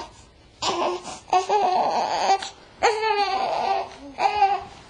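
Newborn baby crying in about four short, wavering wails with breaths in between.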